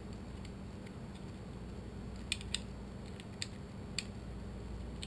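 Small plastic parts of a Thermacell mosquito repellent unit clicking as they are handled, while a spring is fitted back onto its ignition lever: five or six sharp, light clicks from about two seconds in, over a steady low hum.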